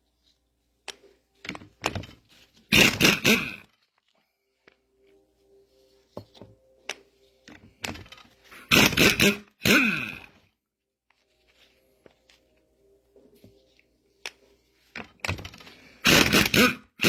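Small metal parts of a mini excavator's hydraulic control valve being handled on a workbench: scattered clicks and knocks, with four short, loud sounds about 3, 9, 10 and 16 seconds in.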